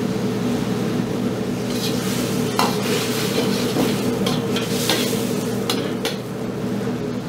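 Steel ladle stirring bubbling, sizzling sauce in a hot steel wok, with several sharp clinks and scrapes against the pan from about two seconds in. Under it runs the steady low hum of the gas wok range.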